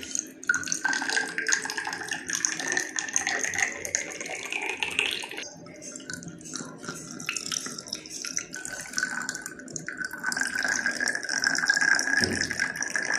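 Whistling bottle being played: water moving inside the vessel drives a high, steady whistle, with gurgling under it. The whistle drops out for a few seconds near the middle and comes back for the last few seconds.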